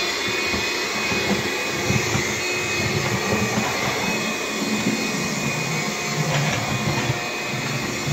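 Bissell PowerGlide cordless stick vacuum running on low power with its brush roll off, moving over a hard floor. Its motor gives a steady high whine.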